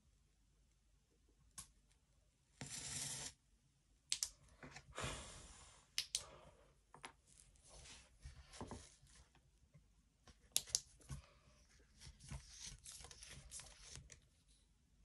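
Faint handling noises of a metal handheld laser pointer being turned over in the hands: scattered sharp clicks and small scrapes and rustles, with a short burst of hiss about three seconds in.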